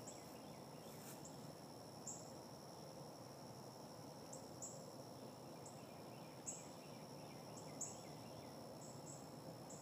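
Faint creekside ambience: a steady high-pitched insect drone, with short high chirps now and then.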